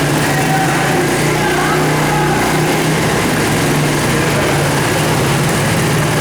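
Small 50cc two-stroke Roketa ATV engine running at a steady, fairly constant speed.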